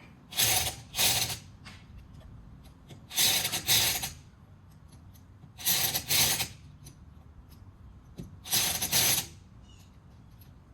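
Impact wrench running lug nuts on a truck wheel in short double bursts, four times about every two and a half seconds.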